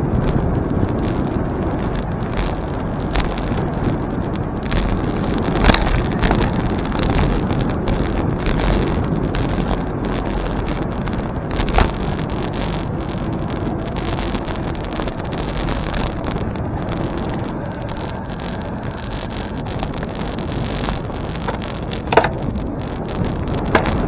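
Wind buffeting the microphone of a moving bicycle, a steady loud rumble with a few short sharp clicks.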